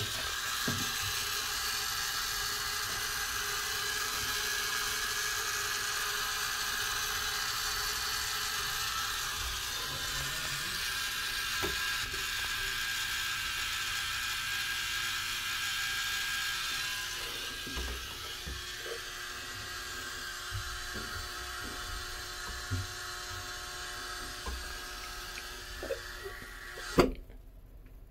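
Steady high-pitched electrical buzzing and sizzling from a 240 V 50 A ELCI shore-power breaker and its wiring terminal under load. It is the sign of a hot, high-resistance connection that is smoking and smelling of ozone without tripping the breaker, which the owner suspects of arcing. A sharp click comes near the end, and the buzzing stops suddenly after it while the power stays on.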